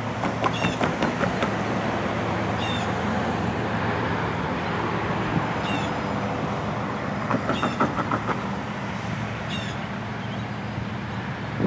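Steady outdoor traffic rumble at a railroad grade crossing, with quick runs of clunks as car tyres cross the rails at the start and again about seven seconds in. Short high bird chirps come every few seconds.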